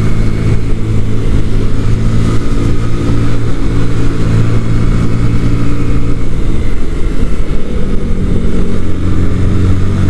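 Sinnis Akuma 125cc motorcycle engine running steadily at road speed, heard from on the bike with a low rush of wind. The engine note wavers and dips briefly about two-thirds of the way through, then settles again.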